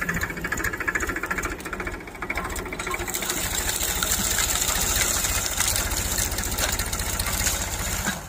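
Powertrac Euro tractor's diesel engine running with an even, fast beat as the tractor works its rear blade through dry brush. It gets a little louder and harsher about three seconds in.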